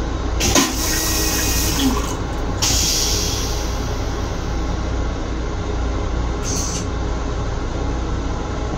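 Long Island Rail Road M7 railcar running, heard from inside its small restroom: a steady low rumble with a hiss over it. A sharp knock with brief ringing comes about half a second in.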